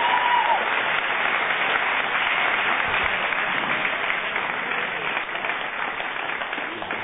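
Live studio audience applauding, the clapping slowly dying down toward the end.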